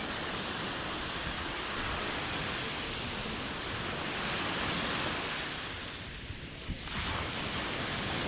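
Sea surf: waves breaking and washing ashore in a continuous rush that swells about halfway through, drops away briefly about six seconds in, then surges back as the next wave comes in.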